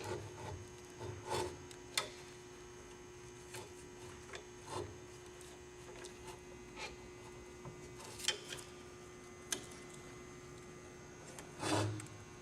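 Rubber vent-window weatherstrip being worked into the channel of its metal frame: scattered short rubbing and scraping sounds, about one every second or two, over a faint steady hum.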